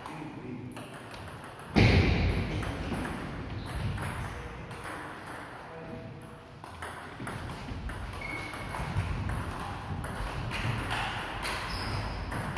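Table tennis rally: the ball clicking back and forth off the bats and the table. A loud thump about two seconds in.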